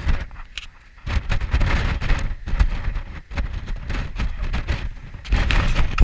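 Strong, gusty wind buffeting the microphone in loud, irregular blasts, easing briefly about a second in, then picking up again with another surge near the end.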